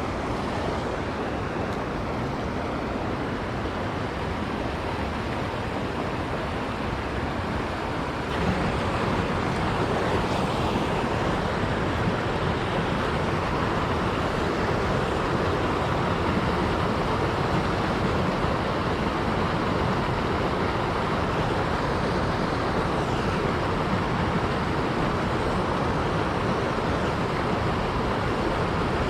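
Steady rush of flowing river water, stepping up louder about eight seconds in.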